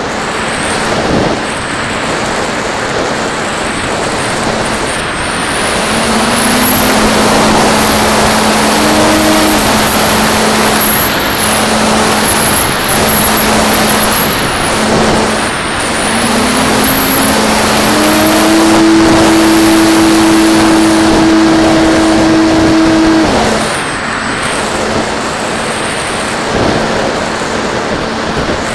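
FPV flying wing's electric motor and propeller buzzing under heavy wind rush over the onboard camera's microphone. The motor pitch steps up twice as the throttle is opened, holds, then drops off about 23 seconds in.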